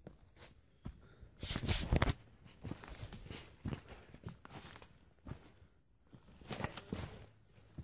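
Footsteps of a person walking on the forest floor: irregular crunching and rustling steps, loudest in a cluster about one and a half to two seconds in and again near the end.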